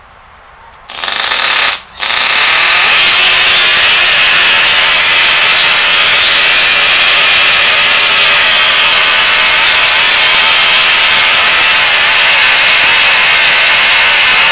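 K&B Seafury twin-cylinder glow-plug model outboard engine being started with a belt-drive electric starter: a loud burst of spinning about a second in, a short break, then the engine running on its own, loud and steady.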